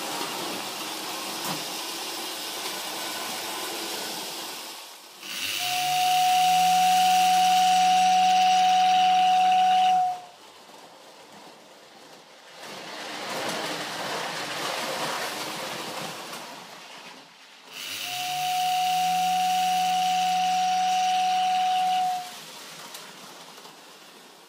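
Prewar Lionel O gauge toy train running on the track with a steady rattle, and the locomotive's motor-driven tender whistle blown twice in long blasts of about four seconds each. Each blast is one steady whistle note over a low motor hum that rises in pitch as the whistle spins up.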